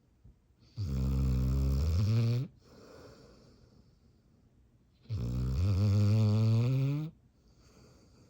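Dog snoring in deep sleep: two long, loud snores about four seconds apart, each a buzzing drone of nearly two seconds that rises slightly in pitch, with soft breathing between them.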